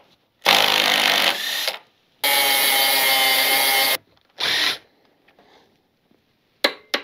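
Cordless Makita power tools running in two bursts, the second about two seconds long, on motorcycle sprocket nuts and bolts. A shorter burst follows, then a few brief knocks near the end.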